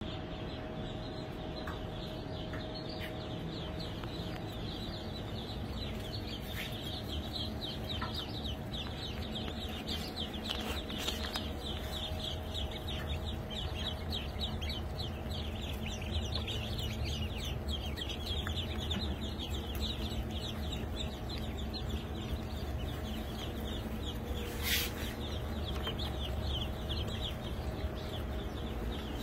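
Many baby ducklings peeping at once, a dense stream of short high downward chirps over a steady low hum. One brief, louder sharp noise comes about three-quarters of the way through.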